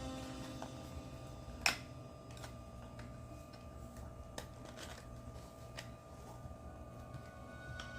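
Sparse light clicks and taps of plastic model-kit parts being handled as the model car's body is worked onto its chassis, the sharpest click about a second and a half in.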